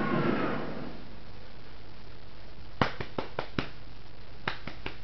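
Sharp clicks in two quick runs, four or five clicks each, about five a second, starting about three seconds in, after a noisy background sound fades out in the first second.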